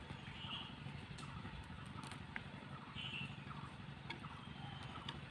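Hens pecking grain from a clay feeding bowl: scattered light clicks over a steady low rumble, with two short high chirps, about half a second in and about three seconds in.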